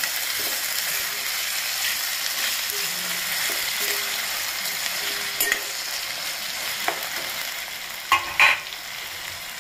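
Chopped onion, potato and tomato frying in oil in a stainless-steel kadhai with a steady sizzle while being stirred, the spatula scraping and knocking against the pan a few times, loudest twice near the end.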